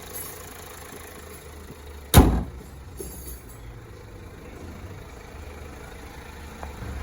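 Car engine idling steadily with a low hum, broken about two seconds in by a single loud thud.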